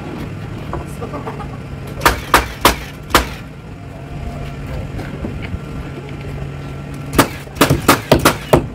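Framing nailer driving nails into the bottom plate of a tall wall that has just been stood up: four sharp shots about two seconds in, then a quick run of shots near the end.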